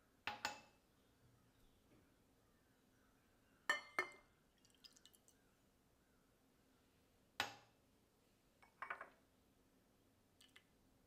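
Utensils and containers clinking and tapping against a mixing bowl as ingredients go in. The knocks come in short groups: two sharp ones at the start, two loud ones about four seconds in followed by light ticks, one more at about seven and a half seconds, and a small cluster near nine seconds.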